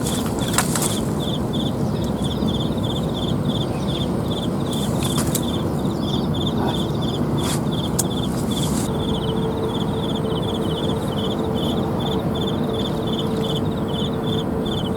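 An insect chirping in short pulsed trills at an even pace, about three every two seconds, over a steady low rushing noise with a few sharp clicks.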